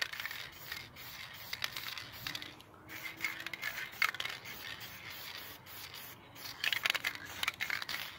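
Aerosol spray can of clear coat hissing in passes, with brief breaks about three and six seconds in.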